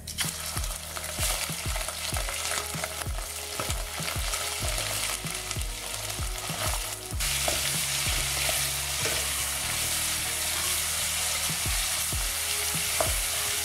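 Raw mutton pieces sizzling in hot ghee with whole spices in an aluminium pot, a steady frying hiss that starts as the meat goes in. Near the end a spatula stirs and scrapes the meat around the pot.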